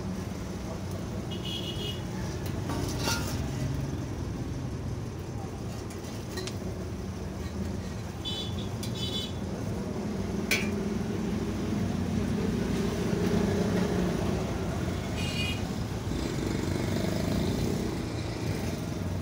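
Steady low rumble of road traffic, with a few short high beeps that sound like vehicle horn toots, and occasional sharp clicks as stiff tape strips and the metal guard are handled.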